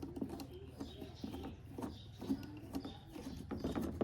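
Phillips screwdriver backing out taillight screws: faint, scattered small clicks and scraping of the tool in the screw heads.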